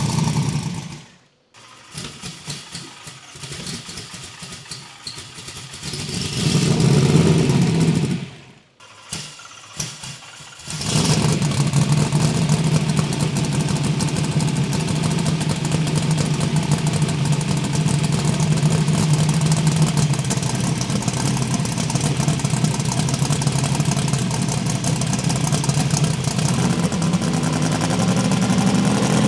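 Twin-turbo Camaro's Proline 481X V8 running. There is a short loud burst of engine noise about seven seconds in. From about eleven seconds in it runs steadily on one even note that rises a little near the end.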